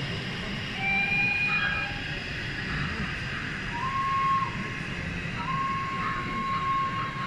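Steady hall hubbub at a model railway exhibition, with thin, steady, whistle-like tones. A short higher tone comes about a second in, a brief tone near the middle, and then a steady tone that holds through the last couple of seconds.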